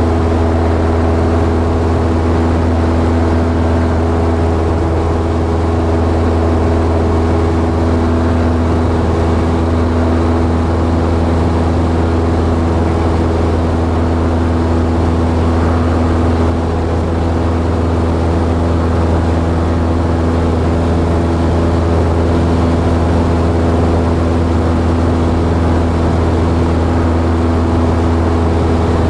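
Light propeller airplane's engine and propeller droning steadily at cruise, heard from inside the cockpit, with a deep hum and a constant pitch.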